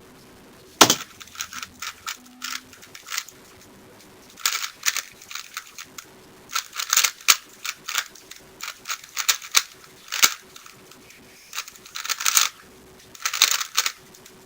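3x3 speed cube being turned fast by hand: rapid plastic clicking and clacking of the layers in bursts with short pauses between them, after a single sharp click about a second in.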